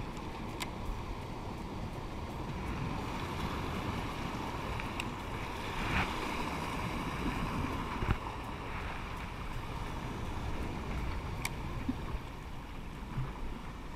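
Ocean surf washing over coastal rocks, with wind buffeting the microphone; the wash swells to its loudest about halfway through and then eases, with a few sharp ticks scattered across it.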